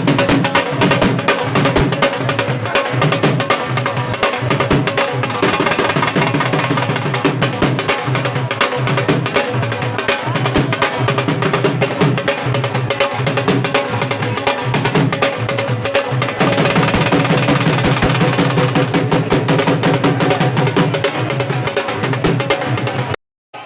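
Loud drumming in a fast, steady rhythm that cuts off abruptly near the end.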